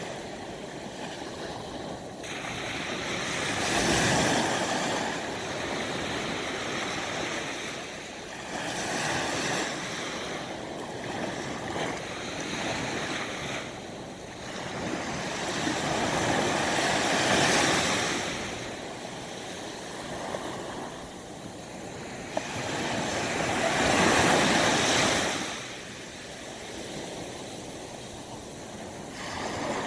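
Sea waves breaking and washing in, swelling and falling away about every six to eight seconds, with wind blowing through.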